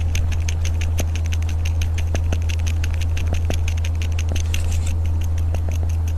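Domestic cat purring in a loud, steady low hum, with irregular small clicks as it sucks on a rubber baby pacifier.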